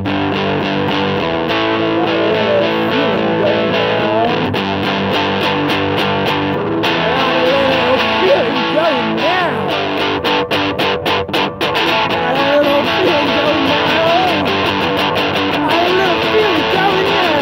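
Electric guitar played loud through a small amplifier: the instrumental outro of a garage-rock song, held chords and notes ringing with some bent notes.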